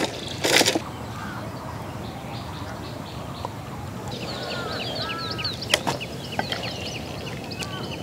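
Birds chirping and calling over and over from about four seconds in, with a few sharp clicks among them. About half a second in there is a short scraping clatter as a large steel cooking pot is set down on the ground.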